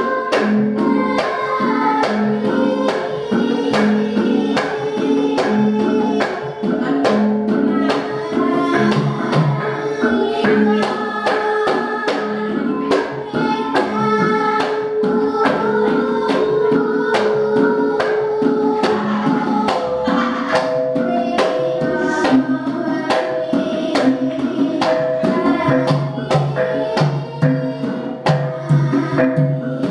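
Javanese gamelan ensemble accompanying women singing palaran (Gambuh and Megatruh verses) through microphones, with a steady even pulse of struck bronze keys, gong-chimes and kendang drum under the long, wavering sung lines.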